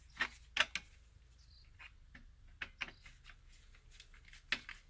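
Irregular sharp clicks and taps of a screwdriver and wire being worked on a terminal screw of the grounding bar inside a metal AC disconnect box, coming in small clusters.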